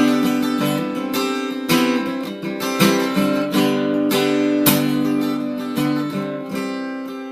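Acoustic guitar strumming chords, an instrumental ending that rings out and fades near the end.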